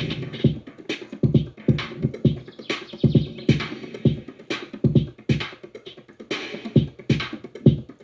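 Background electronic music with a steady beat of deep kick drums, about two a second, and crisp high percussion.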